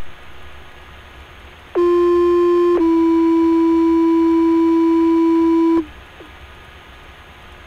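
Fire department two-tone pager alert over a scanner radio: one steady tone for about a second, then a slightly lower tone held for about three seconds, with radio hiss before and after. The tones set off the volunteer firefighters' pagers to call them out.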